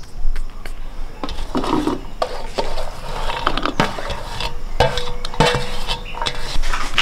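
Diced raw green mango pieces being scooped and tipped into a plastic bowl: a busy run of small knocks, clatters and rustles as the pieces fall and the container knocks against the bowl. A short ringing tone comes about five seconds in.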